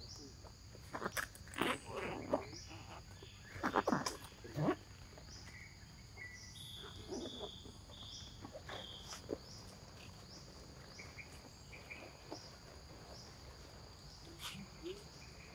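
Insects trilling steadily and high-pitched, with a short rising chirp repeating about every 1.3 seconds. A few brief louder sounds break in during the first five seconds.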